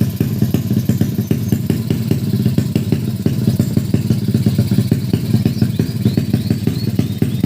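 Tuned 130cc drag-bike motorcycle engine running steadily at an even, unchanging speed with a rapid pulsing beat.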